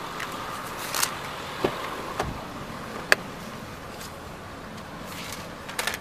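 Scattered clicks and knocks of footsteps, gear and a car door as someone climbs into a vehicle, over a steady outdoor background noise; the sharpest click comes about three seconds in, with a small cluster of knocks near the end.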